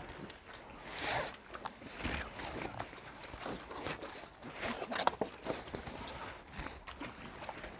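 Crab shells being handled and shuffled across wooden dock boards, making irregular scraping and rustling sounds, with one sharp click about five seconds in.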